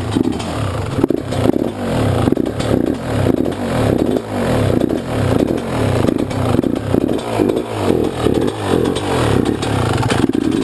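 Freshly rebuilt Yamaha YZ125 two-stroke dirt bike engine being revved repeatedly, its pitch rising and falling about twice a second.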